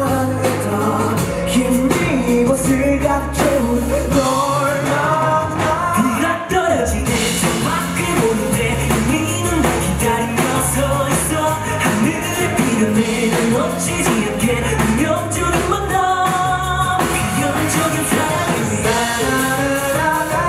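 Pop-rock band song: a male lead voice singing over electric bass, drums and keyboard.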